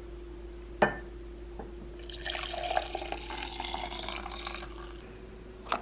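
Hot chocolate made with milk and bone broth is poured from a pot into a ceramic mug, a stream of liquid filling the mug for about two and a half seconds. A sharp knock comes about a second in, before the pour, and a shorter knock comes near the end.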